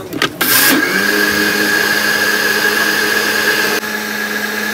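Countertop electric blender blending a jar of white liquid. After a couple of clicks it is switched on about half a second in, spins up quickly and runs steadily with a high whine.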